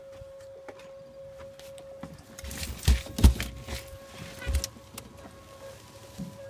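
Knocks and rustling as a landed striped bass that swallowed the hook is handled in the boat to work the hook free, loudest about three seconds in with another knock a second later, over a steady whine.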